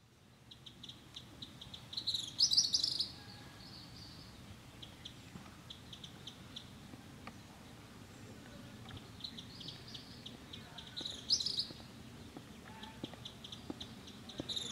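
Birds chirping and calling over a faint, steady outdoor background, with louder bursts of rapid calls about two seconds in, again past the middle and once more at the very end.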